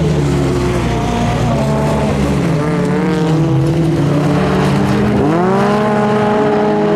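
Folkrace cars' engines revving hard on a gravel track. The pitch climbs and drops again and again through gear changes, with a steep rise about five seconds in, over the crunch of tyres on gravel.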